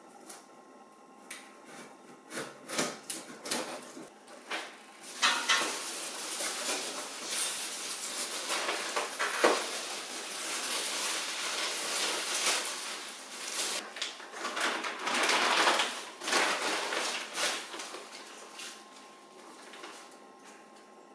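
Metal parts being handled: scattered knocks and clicks, then several seconds of dense clattering and scraping that fades near the end, over a faint steady hum.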